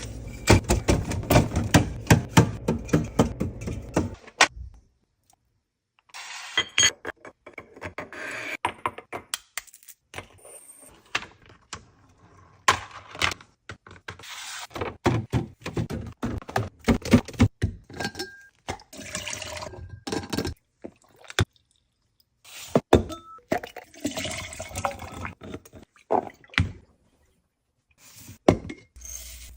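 Fridge-restocking sounds: containers, bottles and packets being set down and arranged on fridge shelves, in quick runs of taps, knocks and clinks with stretches of rustling. It stops dead a few times where the clips are cut.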